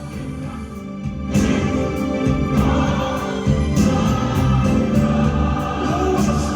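Gospel song with a choir singing over a band. The music swells louder about a second and a half in, as the full band with drums comes in.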